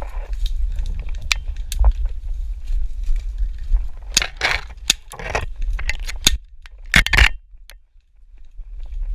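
Crunching and rustling of dry vegetation as a player moves through brush, with scattered sharp clicks and a low wind rumble on the microphone.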